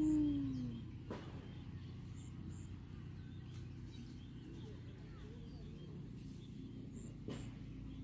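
Quiet rural outdoor ambience with faint, high bird chirps in pairs, heard a few times. A short low call that rises and then falls opens it as the loudest sound, and two sharp clicks fall about a second in and near the end.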